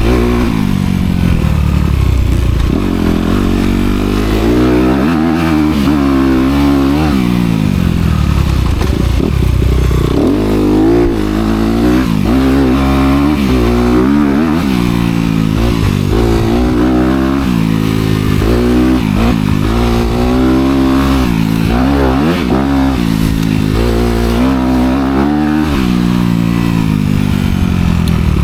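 Honda CRF250R dirt bike's single-cylinder four-stroke engine through its dual exhaust, revving up and dropping back over and over as the bike is ridden hard, with a new climb roughly every one to two seconds.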